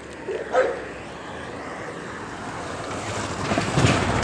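Wind buffeting the phone's microphone, a rushing noise that grows louder toward the end.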